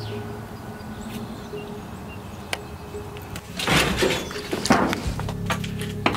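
Metal garden shed door being pulled open, with a loud scraping rattle about three and a half seconds in, then a few sharp clicks near the end, over a low steady drone of film score.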